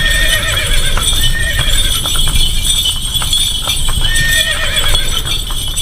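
Horse sound effect: hooves clip-clopping steadily while a horse whinnies three times.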